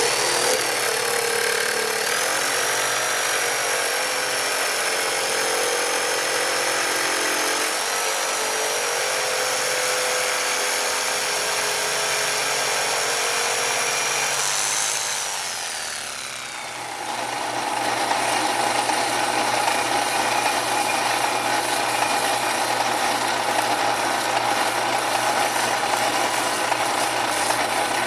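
A power tool's motor running steadily with a high whine, then spinning down about fifteen seconds in. A second steady machine noise with a lower hum takes over shortly after.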